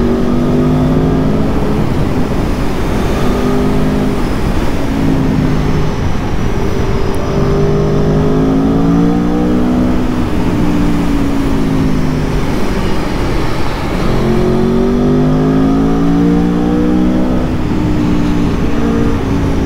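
Aprilia Tuono V4 1100's 1077 cc V4 engine under way, its revs rising and falling repeatedly as the bike accelerates and slows, with wind rushing past.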